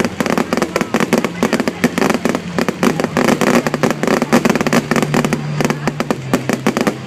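Fireworks going off in a dense, rapid string of crackles and bangs with no break.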